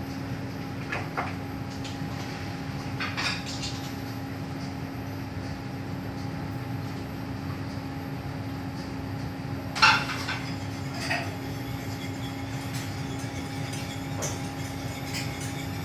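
Commercial kitchen extraction hood fans running with a steady hum, while metal pots and utensils clink and clank several times, loudest about ten seconds in.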